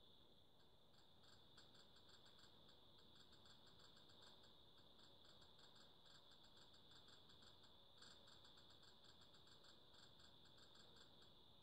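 Faint rapid clicking, about six clicks a second, keeping pace with fast scrolling through an on-screen menu list, over a steady faint high-pitched whine. The clicking stops shortly before the end.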